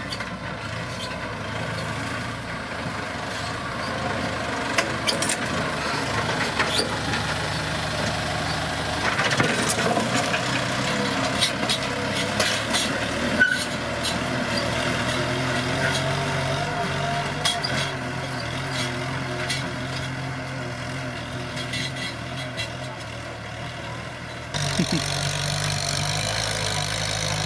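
Tractor diesel engine running steadily under load while pulling a disc plough through dry, cloddy soil, with scattered clanks and knocks from the plough and clods. The sound jumps abruptly louder about three seconds before the end.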